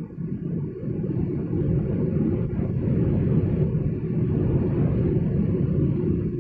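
Steady low rumble of breakfast-cereal flake production machinery running, with its inclined belt conveyor.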